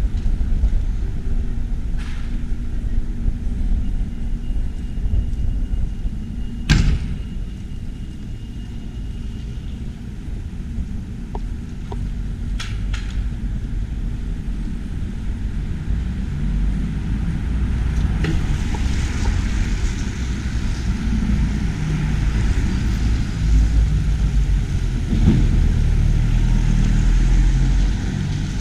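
Steady low outdoor rumble with a few sharp clicks, the loudest about seven seconds in.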